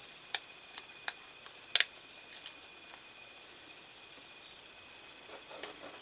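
Small plastic clicks from a key fob's circuit board and plastic case being handled: about five light clicks in the first two and a half seconds, the loudest a little under two seconds in, then only faint room hiss.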